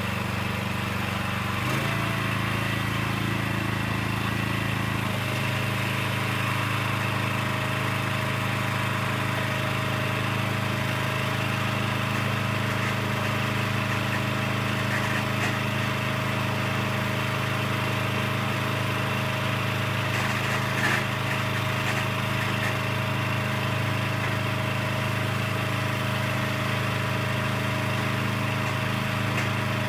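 Small gasoline engine driving the truck scale's hydraulic pump, running steadily. Its tone shifts about two seconds in and again about five seconds in as the hydraulics are worked to unfold the scale.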